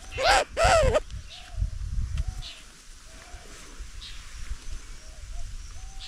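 Birds calling: two loud calls in the first second, then a string of fainter short calls about once or twice a second.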